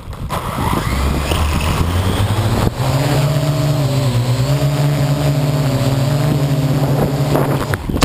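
Parrot AR.Drone quadcopter's four electric rotors spinning up, rising in pitch in steps over the first few seconds, then holding a steady hum, heard close from the camera mounted on the drone. The motors cut off suddenly near the end as the drone tips over.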